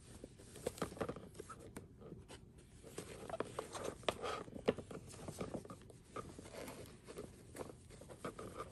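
Clear plastic pockets of an expanding file folder rustling and crinkling as folded cotton fabric is slid into and between them, with scattered small clicks and taps throughout.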